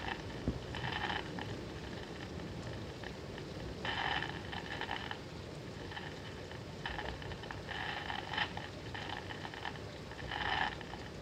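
A radio's speaker crackling with bursts of static, about five times, each lasting up to a second: radio noise picked up from lightning discharges. Steady rain underneath.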